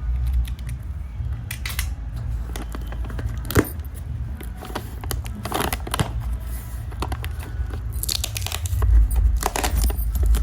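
Packaging being opened by hand: bursts of tearing and crinkling with scattered small clicks and rattles, over a steady low rumble.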